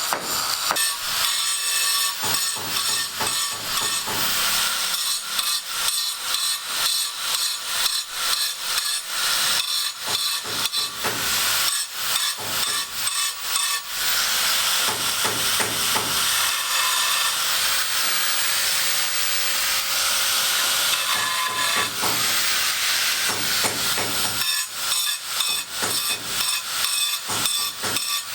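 Construction work noise: rapid, irregular hammering and knocking over a steady hiss, with a stretch of mostly hiss about two-thirds of the way through.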